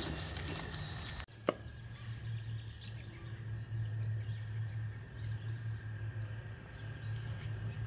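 Outdoor ambience: a steady low hum with faint bird chirps, and one sharp knock about a second and a half in.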